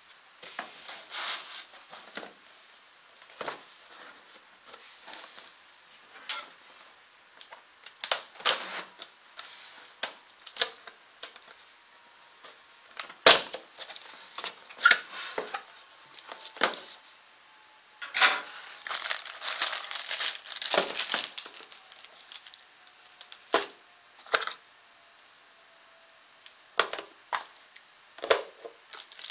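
Cardboard box and foam packing handled during unpacking: irregular rustling, scraping and crinkling, with a sharp knock about halfway through and a stretch of dense rustling a little later.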